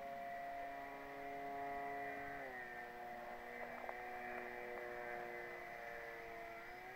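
Whine of the FMS Cessna 182 XL model plane's electric motor and propeller in flight. The steady tone drops in pitch about two and a half seconds in, then rises again near the end.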